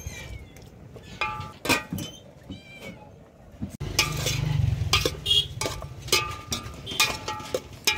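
Metal ladle clinking and scraping against an aluminium cooking pot as chunks of meat are stirred, with a few short, high squeaks among the knocks.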